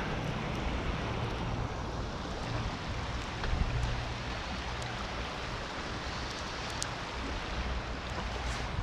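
Steady rush of a river swollen by rain, flowing fast over riffles, with a low rumble underneath.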